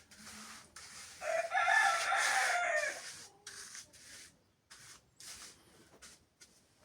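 A rooster crowing once, a single call about two seconds long that drops in pitch at the end, with a series of short noisy strokes before and after it.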